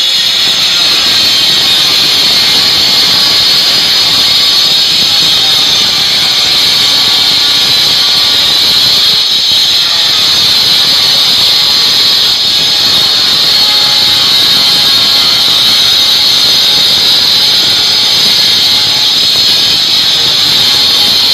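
Handheld angle grinder running steadily with a high whine as its disc is worked along the base of a masonry wall.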